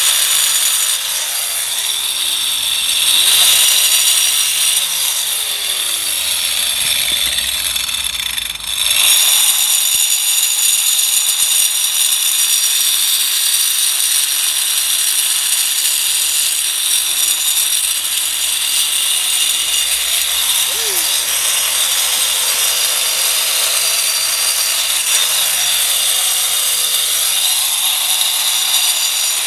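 Corded angle grinder with a cutting disc cutting through a masonry block: a loud, steady high whine with the grind of the disc in the stone. It dips briefly about eight and a half seconds in, then cuts on.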